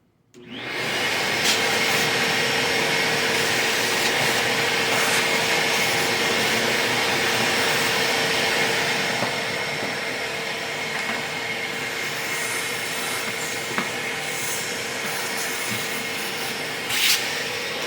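Vacuum cleaner running steadily, clearing debris from the drilling jig and door; a brief knock near the end.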